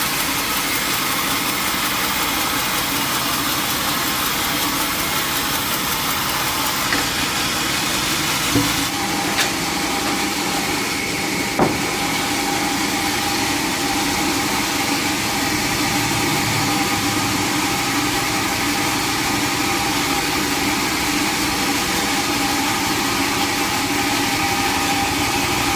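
Sawmill machinery running steadily, with a few short knocks about a third of the way in.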